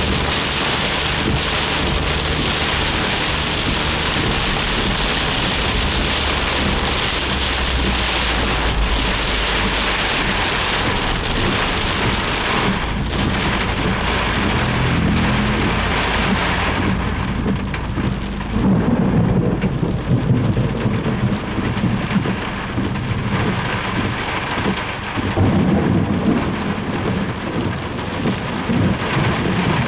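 Heavy downpour drumming on a Suzuki Jimny as it drives, a dense steady hiss of rain and spray over the low engine and road noise. A little over halfway the hiss thins and an uneven low rumbling swells and fades several times.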